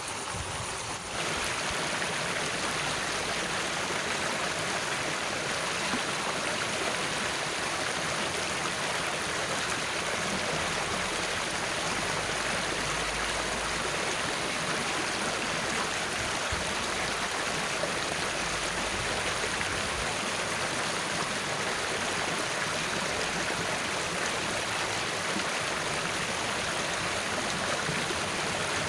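Water running steadily through a shallow ditch, a continuous even rush of flowing water.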